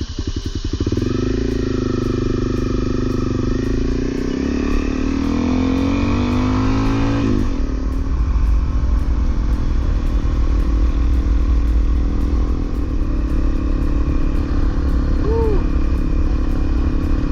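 Honda CRF250L's single-cylinder four-stroke engine pulling away, its revs climbing steadily for about six seconds and dropping sharply about seven seconds in. After that it runs on at a steady pace under a thick haze of wind and road noise.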